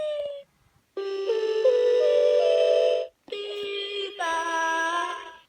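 Electronic toy playing synthesized sounds: a falling tone that stops about half a second in, then two held electronic note clusters of about two seconds each, separated by a short gap.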